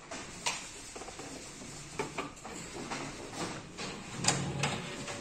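Ricoh MP C2051 colour copier powering up: a steady low machine noise with a few scattered clicks and knocks as its mechanisms start, the loudest about four seconds in.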